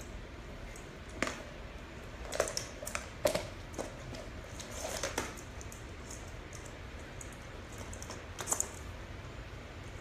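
Scattered short clicks and taps, a cluster of them from about one to five seconds in and another brief burst near the end, as a sheepdog puppy paws and mouths a small plastic ball toy on a rug and hardwood floor.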